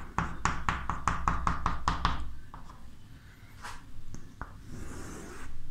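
Chalk tapping on a chalkboard in a quick run of about a dozen short strokes, some six a second, as hatch marks are dashed along the back of a drawn mirror. A few single chalk taps follow.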